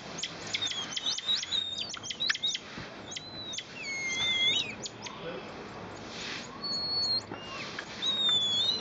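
Emperor tamarins calling: a quick run of sharp, high chirps for the first couple of seconds, then scattered longer high whistles, some held steady and some gliding downward.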